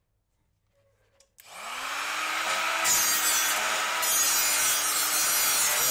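Electric angle grinder switched on about a second and a half in, its motor spinning up with a short rising whine and then running steadily. From about three seconds in, a harsher hiss joins as the disc cuts into the box.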